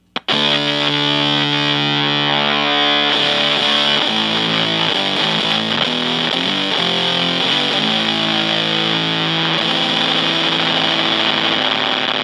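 Electric guitar, a Fender Stratocaster, played through the Atomic Fuzz, a gated silicon fuzz pedal, into a Fender Blues Junior amp, with the pedal's tone switch engaged to cut the lows. It plays a distorted held chord, then about five seconds of changing notes and chords, then another long held chord that cuts off suddenly.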